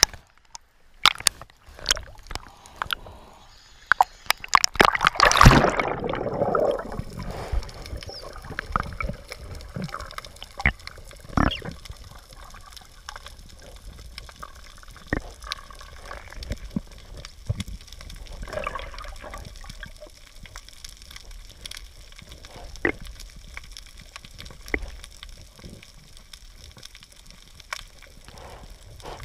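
Water gurgling and sloshing around a camera held underwater on a coral reef, with many sharp clicks throughout. A loud rush of water comes about five seconds in, then the sound settles to a faint hiss with scattered clicks.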